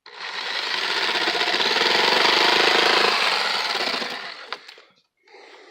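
Power saw cutting through a wooden boat panel, a loud, rapid buzzing rasp that runs about four and a half seconds and then winds down.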